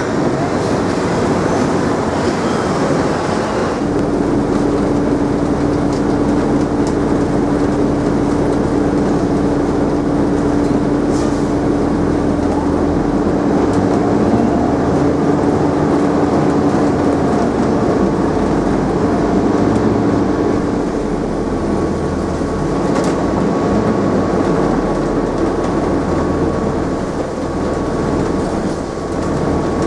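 New York City subway train running through the station, a loud steady rumble of wheels on rail with a steady electric hum over it.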